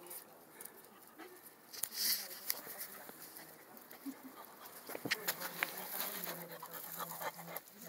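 Puppies playing close to the microphone: scattered small clicks and scuffles, with a brief hissy rustle about two seconds in and a faint low hum near the end.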